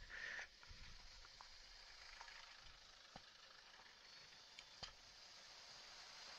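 Near silence: a faint steady hiss of outdoor background, with a short sound in the first half-second and a few soft clicks.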